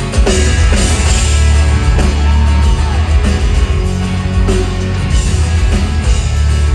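Rock band playing live with drums, bass, guitars and keyboards. The full band comes in loudly just after the start and keeps going.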